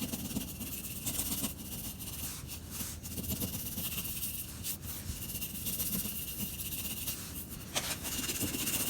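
Scotch-Brite abrasive pad scrubbing back and forth over the trailer's exterior surface, a steady, rasping hiss that swells and eases with the strokes, roughing up the surface and clearing debris before a new magnetic latch goes on.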